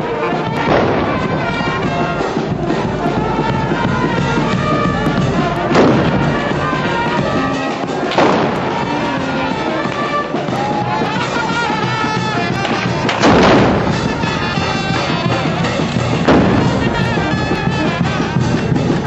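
Music playing throughout, broken by about five loud gunpowder blasts from black-powder carnival rifles, spaced a few seconds apart.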